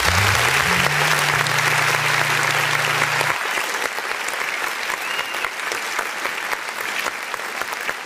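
Crowd applauding steadily, with the held low notes of a music track under it that stop about three seconds in.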